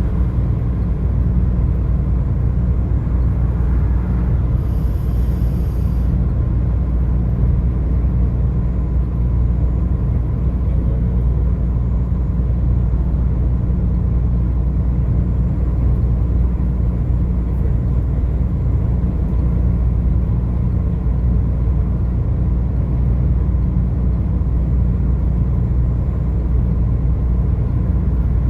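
Steady low rumble of road and engine noise from a car driving along the highway, unchanging throughout. A brief high hiss about five seconds in.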